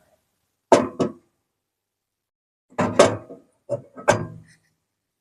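A few short knocks and clicks in three brief clusters, about one, three and four seconds in, as the switch and controls of a boat's diesel heater are worked.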